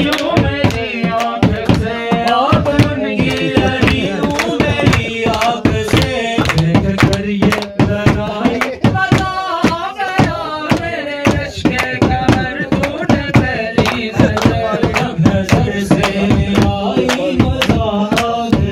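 A man singing a song into a microphone over a steady, rhythmic percussive beat.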